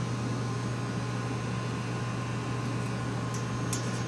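Steady low machine hum of idle shop machinery, with a few faint light clicks near the end.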